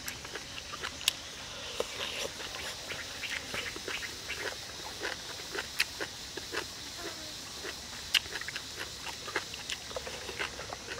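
A person chewing and smacking while eating a stir-fry of chicken liver, heart and morning glory with chopsticks: irregular wet mouth clicks and smacks throughout, over a steady high hiss of outdoor background.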